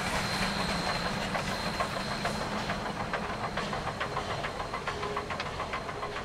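Shay geared steam locomotive working past under heavy smoke, its steam and running gear giving way to open railroad cars rolling by with many sharp clicks and clanks from the wheels, the whole sound slowly fading as the train moves away.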